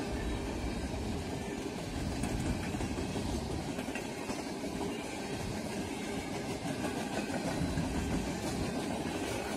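Freight train cars rolling past over a level crossing: a steady rumble of steel wheels on the rails.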